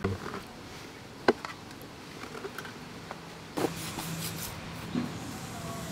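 Cleaver work on a catfish on a wooden chopping board: a sharp knock about a second in, a duller knock past the middle, and small scattered taps and scrapes in between.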